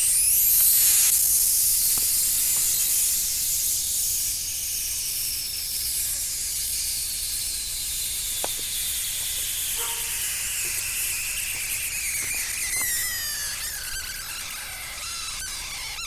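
Electric arc between graphite electrodes fed 36 volts from three wired lead-acid batteries, a loud hiss with a high squealing tone. The squeal slowly falls in pitch and wavers near the end.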